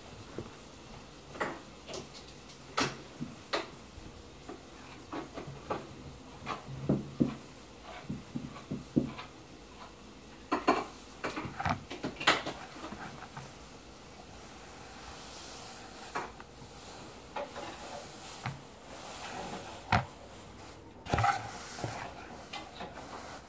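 Irregular rustling and scattered light knocks as a fabric pillow stuffed with tiny foam microbeads is squeezed and shaken over a plastic bowl, emptying beads into it.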